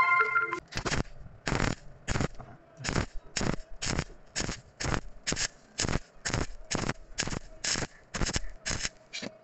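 Electric arc welding on steel square tube, the arc crackling and hissing in short bursts about two a second as the weld is laid on the joint in quick stitches.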